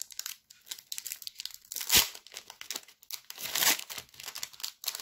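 Foil wrapper of a Pokémon trading-card booster pack crinkling and being torn open by hand: a run of sharp crackles, with a louder one about two seconds in.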